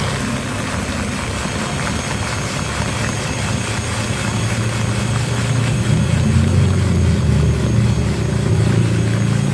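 Electric hand mixer running at high speed, its twin beaters whipping egg whites and sugar in a plastic bowl into meringue that is still thin and not yet stiff. A steady motor hum that grows louder about halfway through.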